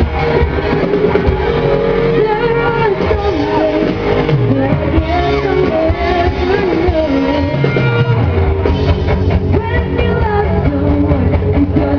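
Live pop-rock band playing, with electric guitar and a female lead vocalist singing over the band through the PA, recorded loud from within the audience.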